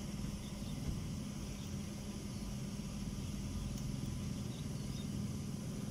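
Steady low machine hum with an even background hiss, unchanging throughout.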